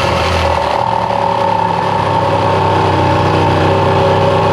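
Makita JR105DZ 12 V cordless reciprocating saw running steadily as it saws through a fixed piece.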